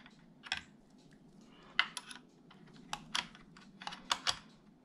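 Irregular light clicks and taps of small metal parts as a titanium dog bone is worked into the titanium spool's drive cup on an RC car.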